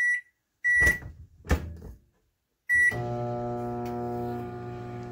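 Microwave oven keypad beeping three times as another minute of cooking time is set, with two knocks in between; about three seconds in the oven starts running with a steady low hum.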